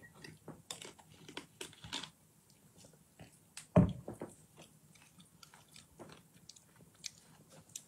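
Swallowing a drink of sparkling water from a plastic bottle close to the microphone, followed by scattered small clicks and crackles of mouth and bottle handling, with one louder knock about four seconds in.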